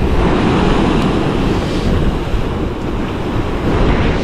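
Rough sea surf washing and breaking against shore rocks, with wind buffeting the microphone as a steady low rumble.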